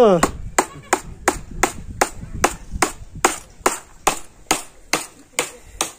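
A steady run of sharp knocks, about two and a half a second, from something being struck repeatedly on a wooden crate. The knocks stop near the end.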